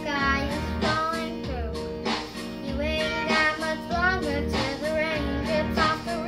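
A young girl singing, with vibrato on held notes, over a country backing track with guitar and low bass notes.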